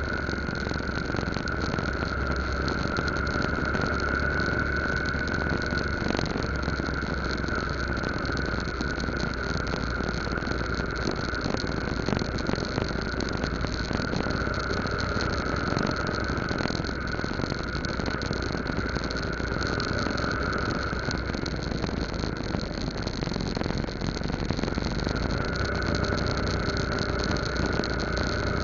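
Yamaha Lagenda 115Z motorcycle's small single-cylinder four-stroke engine running steadily on the move, with a constant high whine that swells a little now and then over road and wind noise.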